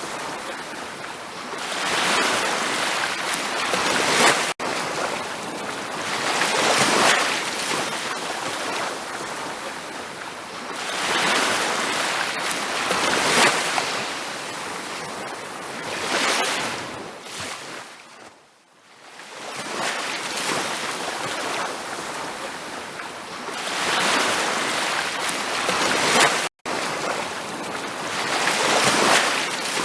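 Ocean waves breaking and washing up on a beach, the surf swelling and falling back every few seconds, with a deep lull about two-thirds of the way through. The sound cuts out for an instant twice.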